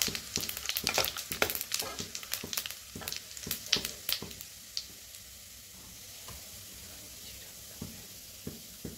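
Cumin seeds and broken dried red chillies sizzling in hot oil in a kadhai as the tadka is tempered. Rapid sharp crackles for the first four seconds or so thin out to a steady sizzle with occasional pops.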